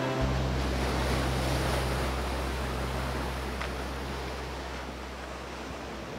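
Ocean surf washing onto a beach, an even rush of waves that slowly fades, over a low steady drone.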